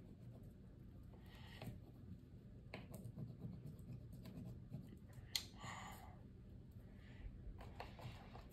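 Faint scratching of drawing strokes on paper, with a few light clicks in between.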